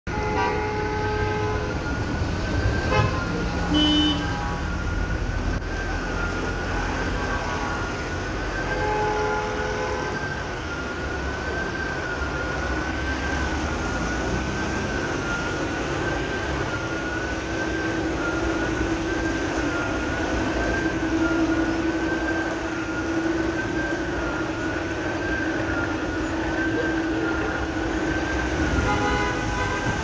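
A warning siren sounding steadily, its pitch wavering up and down about once a second, over the hiss of traffic on a wet road. Short car-horn toots sound a few times, near the start, around 3 and 9 seconds in, and near the end.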